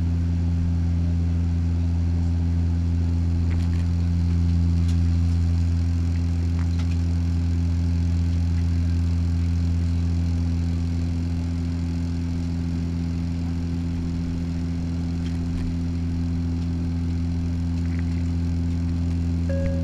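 Steady low propeller hum of a turboprop airliner in flight, heard inside the cabin from a window seat beside the engine.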